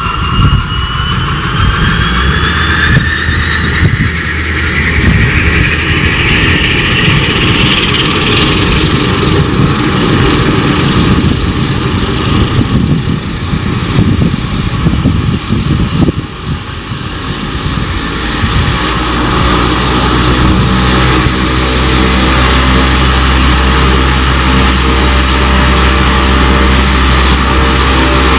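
Cessna 208 Grand Caravan's PT6A turboprop engine starting up: a turbine whine rises steadily over the first eight or nine seconds as the engine spools up, then levels off. The engine and propeller settle into a steady idle, with a steady low drone taking over in the last third.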